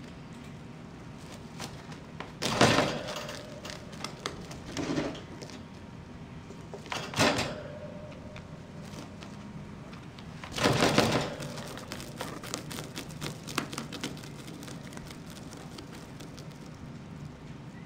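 A rabbit chewing and tearing at a woven grass hay rack: dry crackling and snapping of the grass strands, with four louder crunching bursts spread across the clip, the longest about eleven seconds in, and small clicks of nibbling between them.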